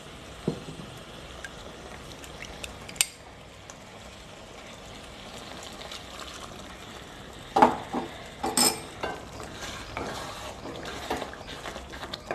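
Chicken curry simmering in an aluminium kadai, a faint steady sizzle, with a couple of light clinks in the first three seconds. From about seven and a half seconds in, a run of knocks and scrapes against the pan as water is poured in and the curry is stirred with a wooden spatula.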